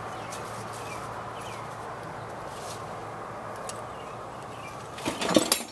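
Faint metallic clicks and scrapes of small washers and a hooked tool being worked inside a truck's front hub, over a steady background hiss. A louder clattering burst comes about five seconds in.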